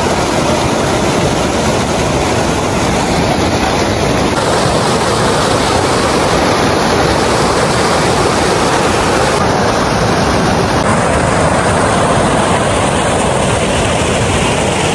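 Muddy floodwater rushing and churning fast over a sandy earthen bank: a loud, steady rush of water.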